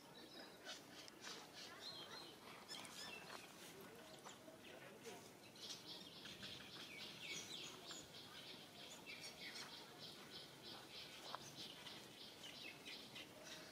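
Faint chirping of small birds, becoming a busy run of chirps from about halfway through to near the end, with a few soft clicks.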